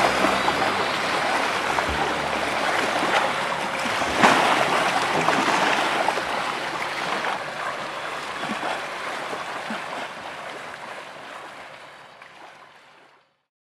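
Rushing, splashing water, with a louder splash about four seconds in, fading out to silence near the end.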